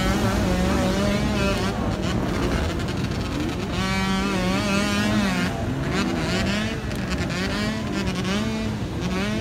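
Several enduro dirt bike engines revving hard under load on a steep, sandy hill climb, the pitch repeatedly rising and falling as the riders work the throttle.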